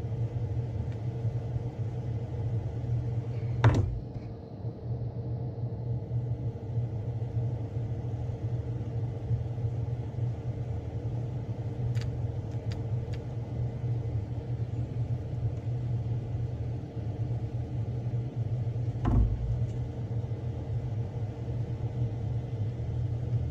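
A steady low motor hum, with two knocks, about 4 and 19 seconds in, and a few light clicks near the middle.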